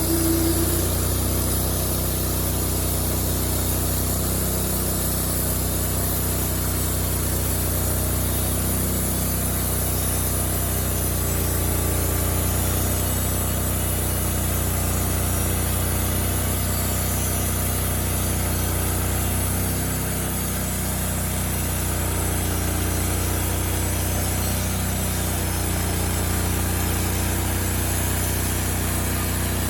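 Wood-Mizer portable band sawmill's engine running steadily at an even pitch, dipping slightly in level about two-thirds of the way through.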